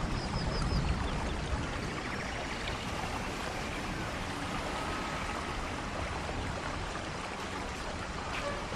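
Steady rain falling, with water running and splashing.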